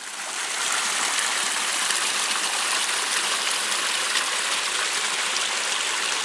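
Small woodland stream rushing over rocks in a steady wash of water noise, fading in over about the first second.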